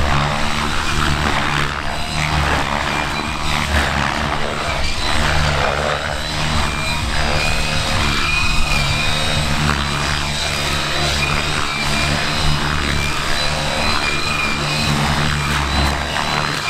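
Two electric RC 3D helicopters flying aerobatics together: their main rotors whir and their motors whine, the pitch wavering with the manoeuvres.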